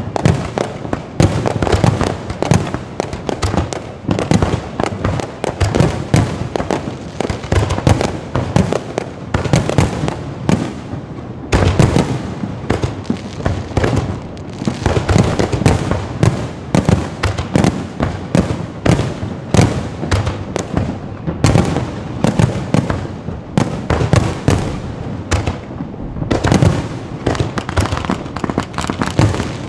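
Fireworks going off in a dense, continuous crackle of bangs and pops.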